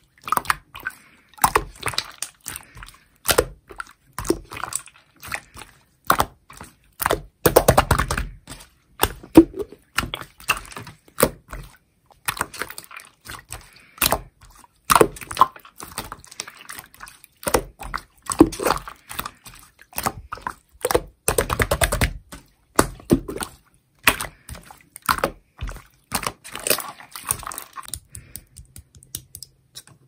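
Clear slime being stretched, folded and squeezed by hand, giving irregular sticky clicks and small pops. Twice the popping thickens into a quick crackling run, about a quarter of the way in and again about three-quarters in.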